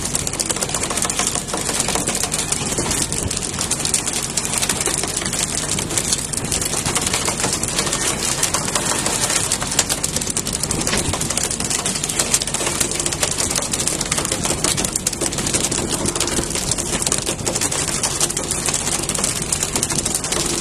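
Fishing boat's engine running steadily under an even hiss of wind and sea, with fine rapid clicking mixed in.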